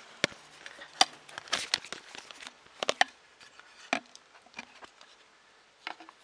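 Irregular clicks and knocks of a clamp-on bottle-cage bracket being handled and shifted along a bicycle frame tube, with a short flurry of taps about a second and a half in.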